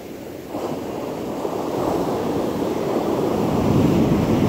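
Ocean surf: a breaking wave rushes up the beach, its wash swelling from about half a second in to its loudest near the end.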